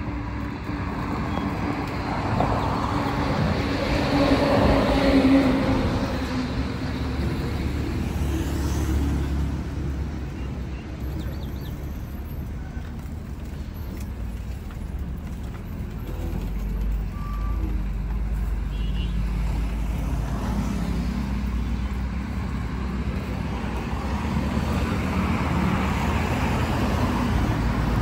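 Road traffic going by, with heavy vehicles rumbling past; loudest about five seconds in and again toward the end.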